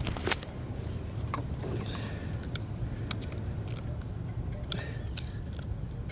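Metal pick tool clicking and scraping against a plastic coil pack wiring harness connector as it is pried under the locking clip: a few sharp ticks over a steady low rumble.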